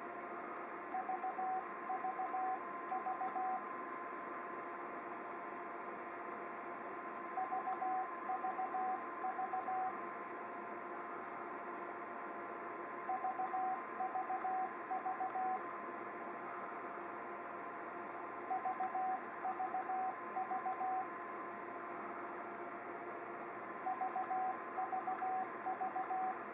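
Ten-Tec Eagle transceiver's CW sidetone: five bursts of keyed Morse beeps at one steady pitch, each burst about two and a half seconds long and repeating every five to six seconds, as the rig transmits into a dummy load. A faint steady whine runs underneath.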